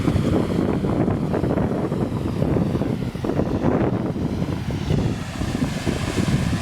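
Steady rushing noise of a waterfall, with wind buffeting the microphone in a low, uneven rumble.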